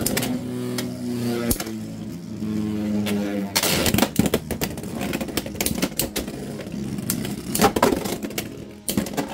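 Dran Buster and Rhino Horn Beyblade X tops spinning in a clear plastic stadium: a steady whirring hum for the first few seconds, then rapid clicking and sharp clacks as the tops collide and scrape along the stadium. The loudest clashes come about three and a half seconds in and again near eight seconds.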